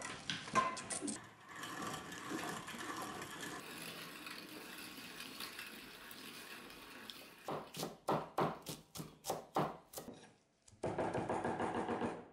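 Hand-cranked meat grinder turning as it minces meat, with light clicks and knocks from the crank and housing. A run of about eight sharp knocks follows, roughly three a second. Near the end, a steel meat cleaver chops fresh herbs on a wooden cutting board in quick, fast strokes.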